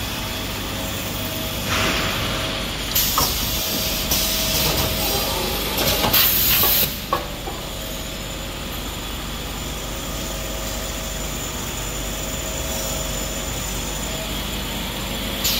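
Napkin packing and bagging machinery running with a steady hum. It gives several short hisses of released compressed air in the first seven seconds, the longest and loudest about six seconds in.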